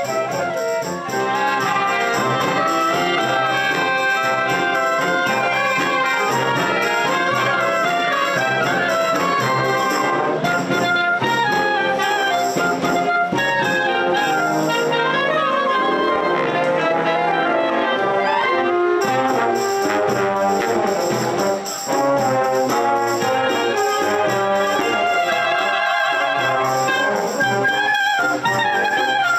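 A high-school wind ensemble playing, with trumpets and trombones prominent over the band.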